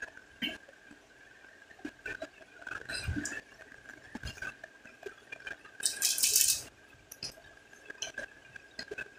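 Light clicks and clinks of make-up items and containers being handled, with a short, loud hiss about six seconds in and a faint steady high whine underneath.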